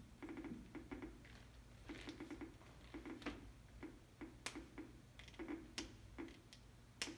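Geiger counter clicking at random, irregular intervals, several clicks a second. Each click is a beta particle from a strontium-90 source registering in the Geiger tube.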